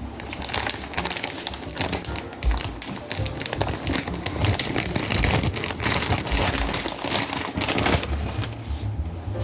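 Background music over rapid crinkling and tapping from hands handling food and packaging during kitchen prep.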